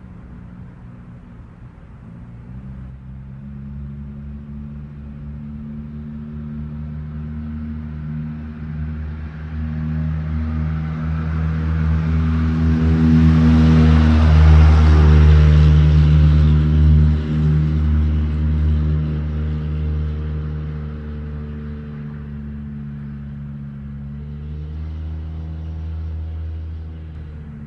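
A motor vehicle on the street passing slowly by, its low engine hum and tyre noise building to a peak about halfway through and then fading away.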